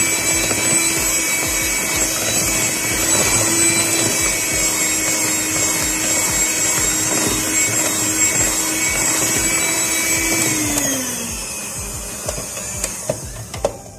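Electric hand mixer running steadily at a constant pitch, its beaters churning thick chocolate cake batter in a glass bowl. About 11 seconds in it is switched off, and the motor winds down with a falling pitch. A few sharp taps follow near the end.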